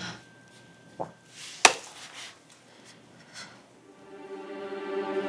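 Two sharp clicks about two-thirds of a second apart, the second louder, then background score music fades in with a held chord.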